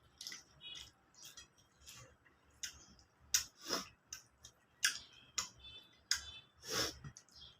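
Someone eating a meal of rice and curry: irregular wet clicks and smacks of chewing, a few of them louder.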